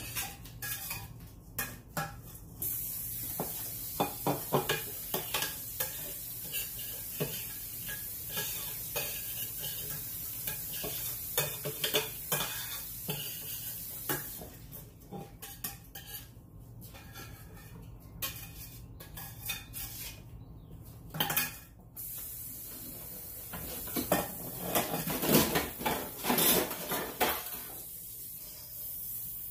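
Kitchen cookware clattering: pots, pans and metal utensils knocking, clinking and scraping. A steady hiss comes in a few seconds in, stops about halfway, and returns in the last third.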